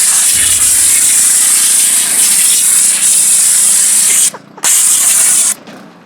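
Pressure washer jet spraying onto a foam board, a loud steady hiss, cut off briefly twice near the end as the trigger is let go.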